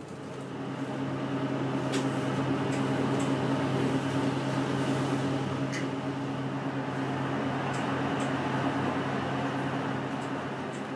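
Steady engine and cabin drone heard inside a bus moving slowly through town, a low humming tone throughout, with a few faint clicks and rattles.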